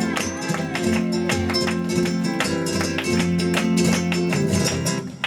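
Flamenco guitar playing a sevillanas, with sharp rhythmic strummed chords over held notes, before the singing comes in.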